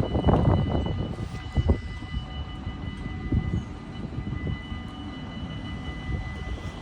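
Metro train pulling away, with a low rumble and clatter that is loudest in the first second or so. Over it runs a steady two-pitched high whine, the weird sound this train makes as it departs.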